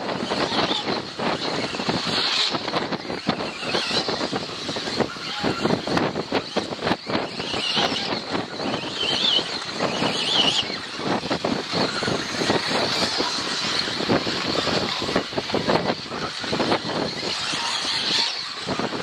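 Radio-controlled 4WD off-road buggies racing around a track, their motors rising and falling in pitch over a constant rough rushing noise.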